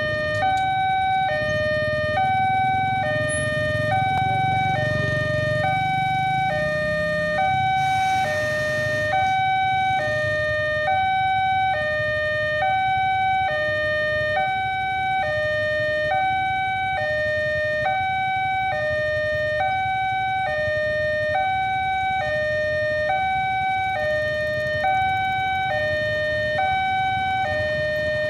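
Railway level-crossing warning alarm sounding its two-tone electronic signal, a higher and a lower note alternating evenly about every half second: the crossing is closed for an approaching train. A low engine rumble from the waiting traffic lies underneath, strongest a few seconds in.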